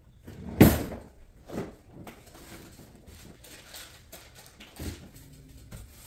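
A few scattered knocks and thumps from someone handling things and moving about on a hard floor. The loudest is a sharp thump just over half a second in, with softer ones near the middle and end.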